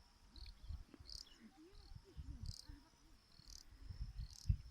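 Crickets chirping: short high chirps about once a second over a faint steady insect trill, with a low rumble beneath.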